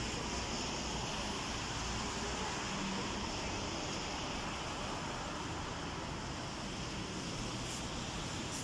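Steady outdoor noise of wind and wet, sleety weather on a phone microphone: an even hiss over a low, unsteady rumble, with two faint ticks near the end.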